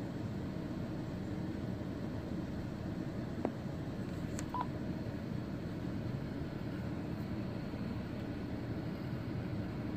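Steady low background rumble. A single click sounds about three and a half seconds in, and a brief high beep about a second later.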